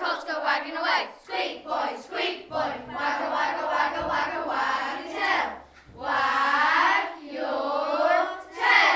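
A group of children rapping in unison, quick rhythmic chanted syllables, with two longer sung lines near the end.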